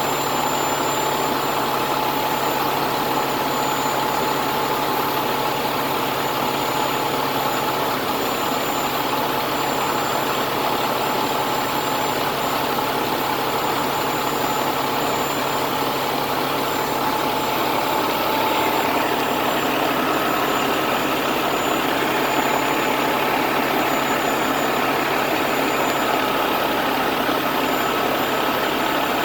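A heavy engine running steadily at a constant speed, with a faint whine over the drone. It gets slightly louder about two-thirds of the way through.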